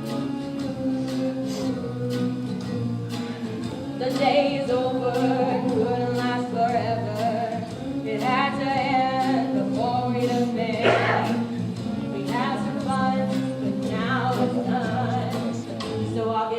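A song from a stage musical: voices singing over instrumental accompaniment with held bass notes and a steady beat.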